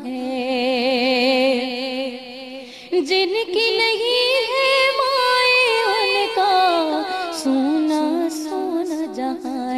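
Music: a slow melody of held, wavering notes, with a louder, higher phrase starting about three seconds in and falling back down toward the end; no words are sung.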